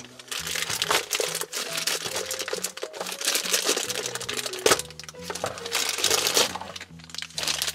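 Plastic packaging crinkling and rustling as small plastic toy gumball capsules are worked out of it, with a sharper knock near the middle. A soft background music bed with held notes plays underneath.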